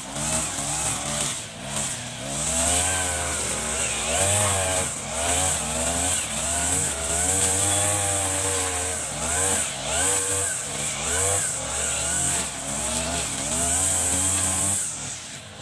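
Backpack brush cutter's small petrol engine running while cutting grass, its pitch rising and falling every second or so as the throttle is opened and eased off with each swing.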